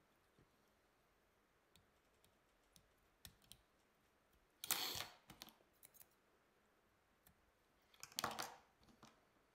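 Faint clicks and handling noises of a whip-finish tool and tying thread being worked at a fly-tying vise to tie off the fly's head, with two louder brief rustling scrapes, one about halfway through and one near the end.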